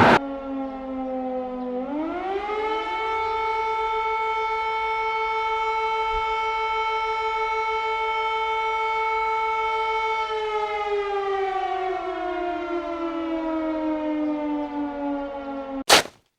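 Air-raid siren: one steady tone that rises in pitch over a second or so, holds for several seconds, then slowly falls as it winds down from about ten seconds in. A short sharp click near the end.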